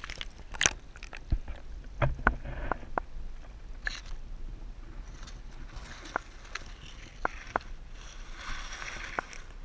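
Underwater sound picked up through a submerged action-camera housing: a low water rumble with irregular sharp clicks and knocks, as eels nose and bump against the camera.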